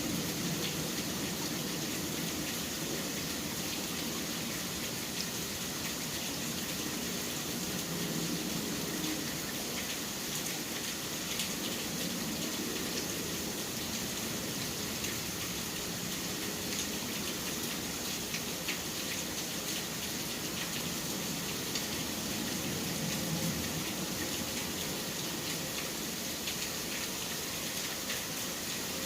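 Steady rain falling, with many small drop ticks. Beneath it a low city rumble swells and fades.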